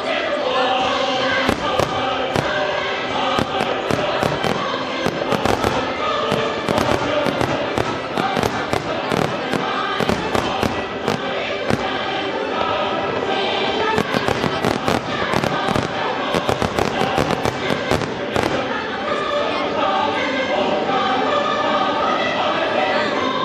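Fireworks display with rapid bangs and crackle from shell bursts and low-fired comets, thickest a little past the middle, over choral music with massed singing voices.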